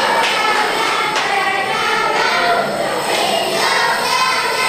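A group of young children singing together on stage, many voices in unison.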